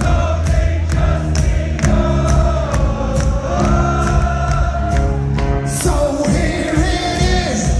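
Live rock band playing loudly, with a steady drumbeat, bass and a long held sung melody, many voices singing along.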